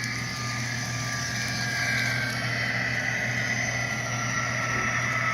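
Sound decoder in an HO-scale Walthers EMD SD60M model locomotive playing its diesel engine sound through the model's small speaker: a steady running note whose tones drift slowly in pitch, over a low steady hum.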